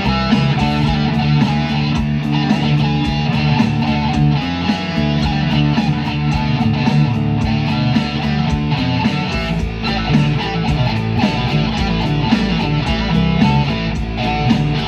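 Instrumental guitar music playing continuously, with plucked and strummed notes over low bass notes.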